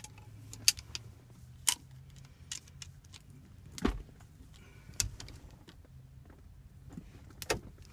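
Pliers clicking and knocking against a manual stick-shift knob as it is gripped and twisted to unscrew it: scattered sharp clicks, about one every second.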